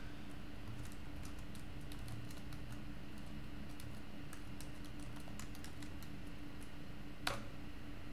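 Typing on a computer keyboard: a scatter of soft, irregular key clicks, with one louder keystroke about seven seconds in, over a faint steady hum.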